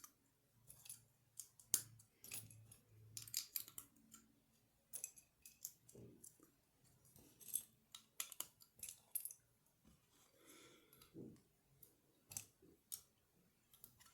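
Small plastic LEGO bricks being handled and pressed together: scattered sharp clicks and light rattles of pieces.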